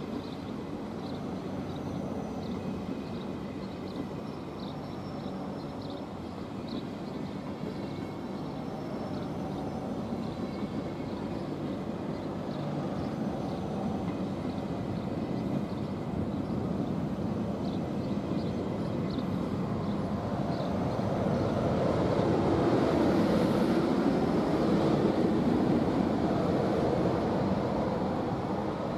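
ÖBB Railjet coaches rolling slowly past, a steady rumble of wheels on the rails with faint light ticks in the first half. The rumble grows louder about two-thirds of the way through, then eases slightly near the end.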